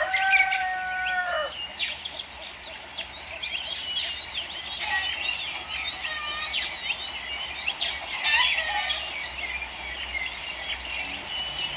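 A rooster crowing once at the very start, one long call, over many small birds chirping and twittering without a break.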